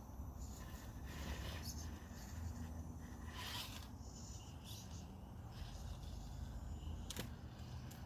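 RC rock crawler with a brushed electric motor crawling over rough terrain: a low, steady drivetrain hum with irregular scraping and rubbing from the tires and chassis, and a sharp click a little past seven seconds in.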